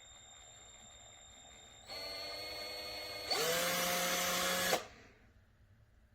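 Cordless drill motor running: a faint high whine, then a louder steady whir at low speed about two seconds in. Just past three seconds the motor speeds up sharply and runs fast for about a second and a half before stopping.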